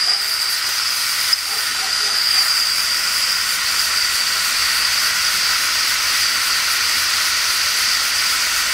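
Small homemade oscillating, double-acting steam engine running fast, with a steady hiss of steam.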